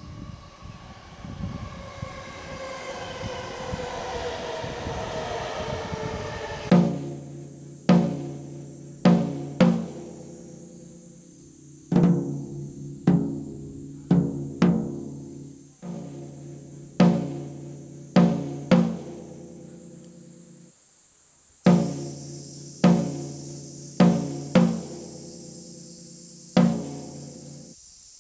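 For the first six seconds or so, an electric train's motor whine rises in pitch. Then music takes over: deep, pitched drum strikes that ring out, in an uneven pattern, with a short pause about three-quarters of the way through.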